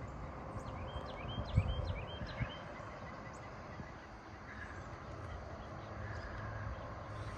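Early-morning rural field ambience: a bird gives a quick run of short chirps in the first couple of seconds over a steady background hiss, with a few low rumbling bumps.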